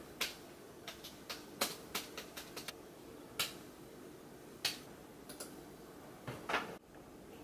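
Typing on an Apple Magic Keyboard: irregular light key clicks, quick in the first few seconds and sparser toward the end.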